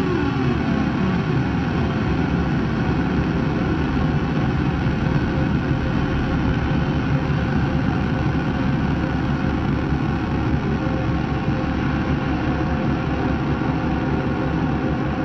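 Guitar effects pedals producing a dense, steady noise drone: a thick wash of distorted noise with faint held tones. A sliding tone falls away in the first second or so.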